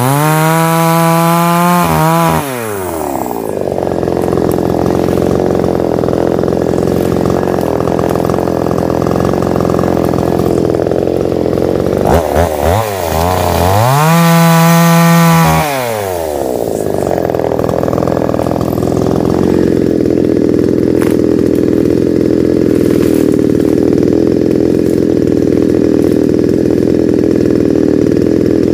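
Two-stroke chainsaw revved to full speed while cutting through a log, twice for about two to three seconds each: at the start and again about 13 seconds in. Each time the pitch falls back and the saw runs steadily at a low idle between and after the cuts.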